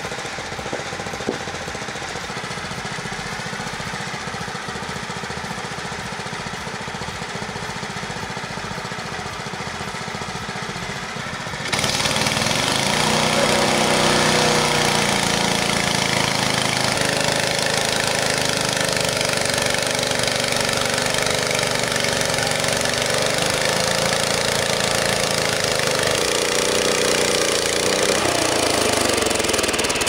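Frontier OS23 portable band sawmill running: its engine runs steadily at first. About twelve seconds in it gets suddenly louder as the band blade cuts through tulip poplar, a wavering whine over the engine and a dense cutting hiss.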